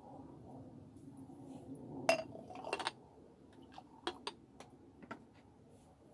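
Glass jars clinking against each other and being set down on a slatted wooden table: one loud clink about two seconds in, a quick cluster just before three seconds, then several lighter clinks.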